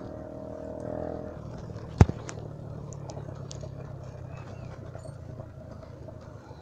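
Bicycle riding over a rough, muddy dirt road: the tyres rumble and the bike rattles with small ticks. One sharp knock about two seconds in, likely as the bike jolts over a bump, is the loudest sound. A low steady hum runs underneath.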